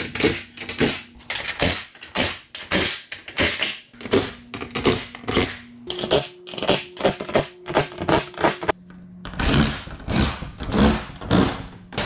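Cordless impact driver hammering down the hinge nuts on a wooden garage door in a string of short, rapid bursts over the tool's steady motor hum, with a brief pause about nine seconds in.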